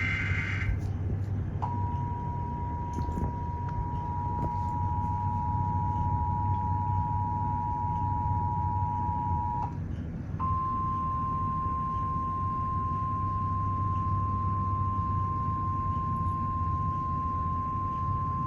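Emergency Alert System tones: a brief burst of digital data tones, then the two-tone EAS attention signal held steady for about eight seconds. After a short gap comes the single steady NOAA Weather Radio warning alarm tone for about nine seconds, announcing a new severe thunderstorm warning. A steady low hum runs underneath throughout.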